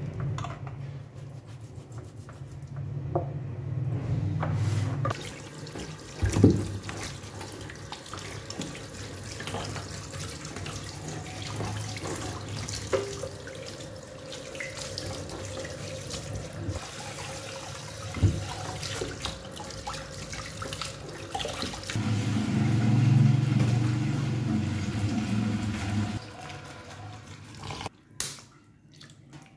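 Tap water running and splashing into a plastic tub in a stainless-steel sink as a raw leg of mutton is rinsed under it and turned by hand. The pour drums more heavily at the start and again about two-thirds of the way through, with a few sharp knocks along the way.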